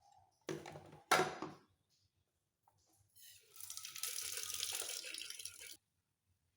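Tap water running into a sink for about two and a half seconds, stopping suddenly, after two brief knocks near the start.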